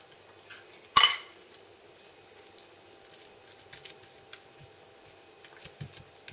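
A metal spoon clinks once against a bowl about a second in, ringing briefly; the rest is faint soft scraping and dabbing of the spoon spreading tuna filling over rice.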